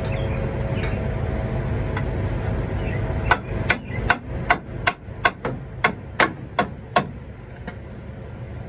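Hammer blows, about eleven quick strikes at roughly three a second, knocking a part up into place beneath a box truck. A steady low rumble runs underneath.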